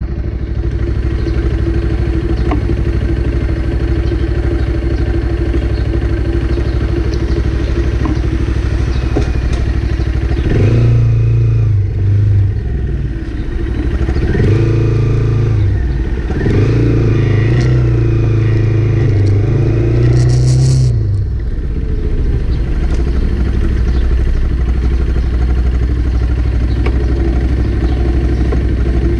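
Motorcycle engine through an aftermarket Scorpion muffler idling steadily, then revved three times in the middle before settling back to idle.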